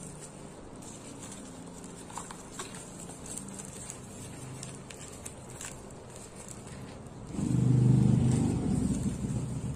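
Faint ticks and rustles of bubble mailers being handled over a low hum. About seven seconds in, a loud low engine hum from a motor vehicle swells up and carries on.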